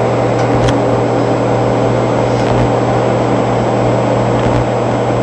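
Microwave oven running with a steady low hum while it heats a whole egg, with one faint click a little under a second in.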